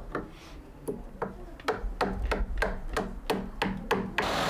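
Hammer tapping a chisel into a wooden door frame in a steady rhythm of about three blows a second. Near the end, a loud, steady rushing noise cuts in over the taps.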